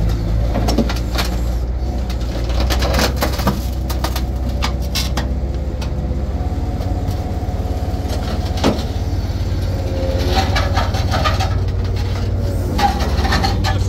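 Recovery crane's engine running steadily with a deep drone as it lifts an overturned truck, with scattered clanks and knocks from the rigging and the truck body.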